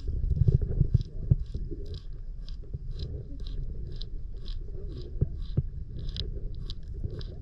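Florida manatee crunching and chewing as it scrapes algae off a log: a dense run of crunches in the first second and a half, then a few scattered sharp crunches.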